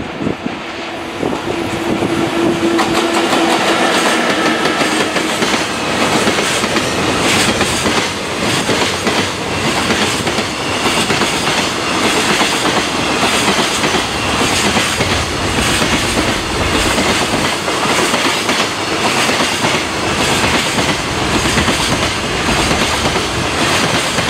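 An EF64 electric locomotive hauling a long freight train of container and tank wagons past. The wagons rumble steadily with the clickety-clack of wheels over rail joints, and a steady tone sounds for the first few seconds as the locomotive goes by.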